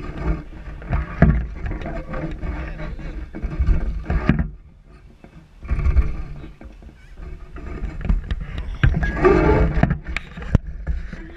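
Knocks and rubbing handling noise on a fishing rod while a hooked bass is reeled in, with a splash about six seconds in as the fish thrashes at the surface.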